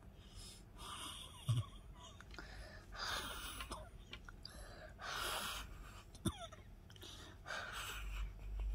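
Faint breathing, with a breath about every two seconds. There is a soft knock about one and a half seconds in and a sharp click about six seconds in, likely from the resin tools.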